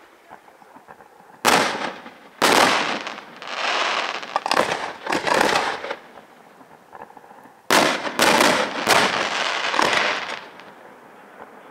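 Aerial firework shells bursting: a sharp bang about a second and a half in, then a run of bangs and crackling glitter over the next few seconds. After a short lull, another cluster of bangs trails off into crackle.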